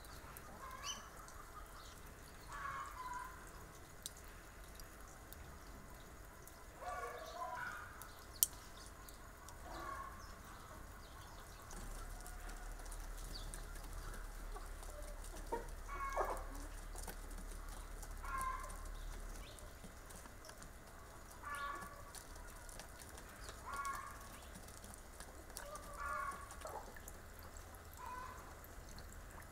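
Chickens clucking faintly in short calls every second or two, with one sharp click about eight seconds in.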